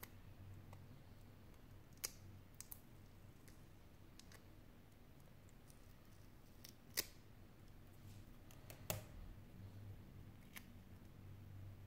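A handful of small sharp clicks over near silence, the loudest about seven seconds in: metal tweezers tapping and picking at small parts on the back of a smartphone display.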